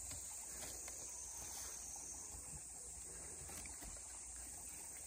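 Faint, steady summer field ambience: a continuous high insect drone over a low rumble, with no distinct events.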